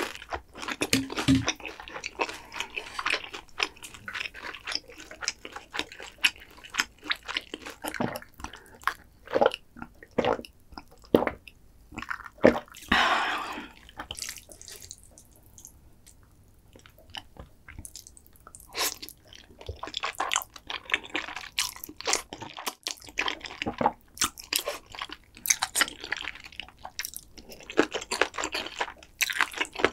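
Close-miked, wet, clicky chewing and mouth sounds of a person eating, with a denser sound of about a second around 13 seconds in. It goes quieter for a few seconds, then the chewing resumes.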